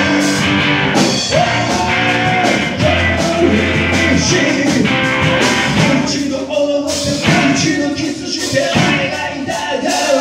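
Live rock and roll band playing: electric guitars, electric bass and a drum kit, with a male singer.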